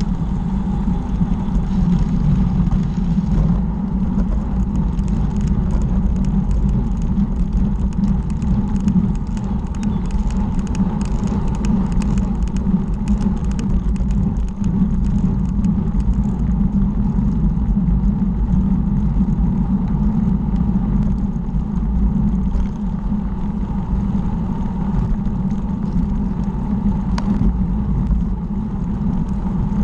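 Wind buffeting the microphone of a bicycle-mounted camera as the bike rolls quickly along a tarmac lane, a steady heavy rumble with tyre noise under it. A spell of light scattered clicks comes in the middle.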